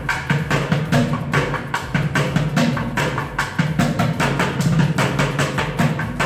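Bucket drumming: two drummers beating a fast, busy rhythm on upturned plastic buckets, several sharp strikes a second.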